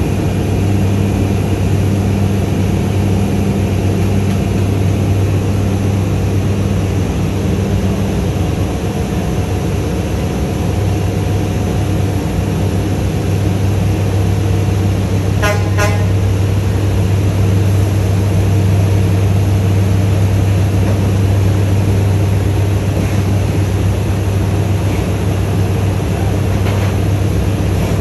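Scania P94 truck's diesel engine running steadily, driving the hydraulics of its Fassi F380 loader crane during a lift. A short horn-like toot sounds about halfway through.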